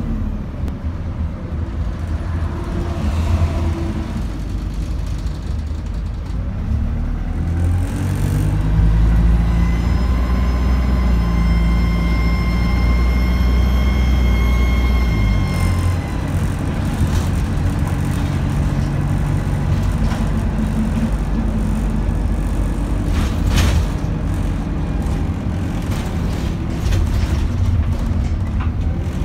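Dennis Dart single-deck bus heard from inside the passenger saloon while under way: a heavy low engine rumble that rises in pitch as it picks up speed, with a steady high whine over it. A few sharp knocks of the body come about three-quarters of the way through.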